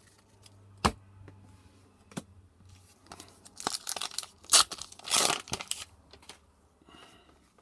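Foil trading-card booster pack wrapper torn open by hand: several crinkling rips over about three seconds, starting about three seconds in. A single sharp tap comes earlier.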